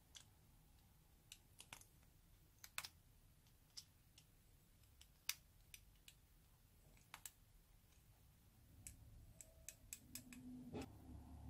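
Faint, scattered sharp clicks and taps of a plastic stick scraping lipstick out of a metal lipstick tube, with several in quick succession near the end.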